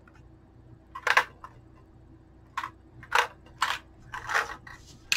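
A hand-worked 3D-printed plastic AR-15 speed loader sitting on a rifle magazine, with cartridges dropped into it and the plunger pushed. It makes about half a dozen short, sharp clicks and clatters of plastic and brass, spaced irregularly.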